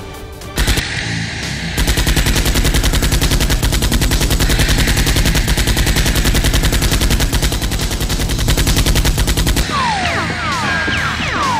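Machine-gun fire sound effect: one continuous rapid burst of shots that starts about two seconds in and stops near the end, over background music.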